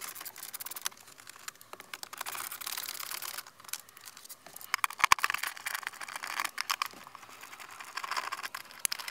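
Hand screwdriver working the bolts out of a car's centre console trim: bouts of dense, irregular clicking and rattling of the tool and loose fasteners, with one sharper knock about halfway through.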